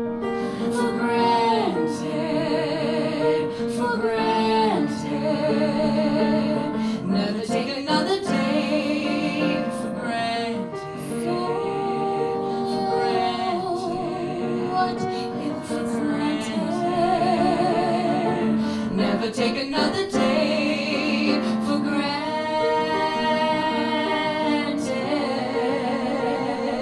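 A woman singing a musical-theatre song with long held notes and vibrato over instrumental accompaniment.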